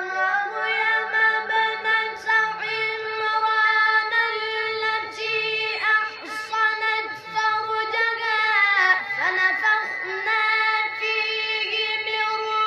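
A boy reciting the Quran in the melodic, drawn-out mujawwad style: long held notes that slide and waver in ornamented runs, broken by short breaths.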